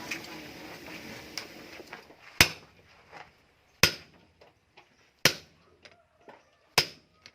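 Hammer striking metal: four sharp, ringing blows evenly spaced about a second and a half apart in the second half, after a stretch of low background noise.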